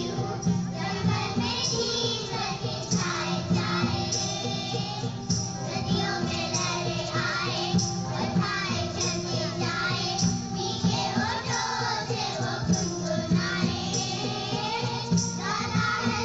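Children's choir singing a song over a steady musical accompaniment.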